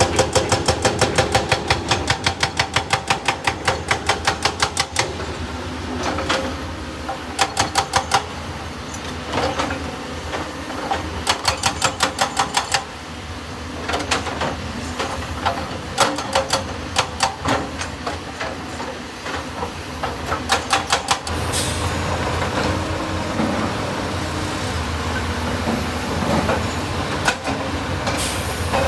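Excavator working, with bursts of rapid, evenly spaced metallic clanking at about five strokes a second that start and stop several times, over a steady machine drone. In the last part the clanking mostly stops and a steady low engine hum remains.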